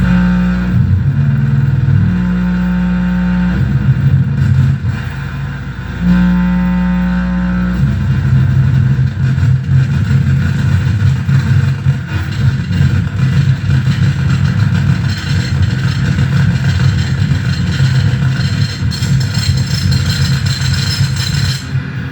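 Electronic noise music from a mixer-feedback rig: loud, low droning tones that jump between a few pitches for the first eight seconds or so, then settle into a steady, buzzy low drone with a rapid flutter.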